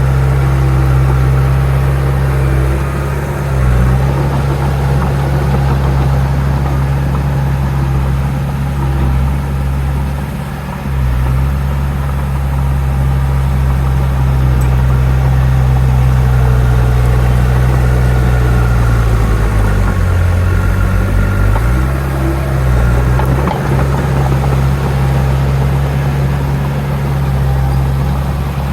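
Heavy diesel earthmoving machine engine running with a steady low drone. Its pitch dips briefly several times as the load or throttle changes, the longest dip lasting a couple of seconds past the middle.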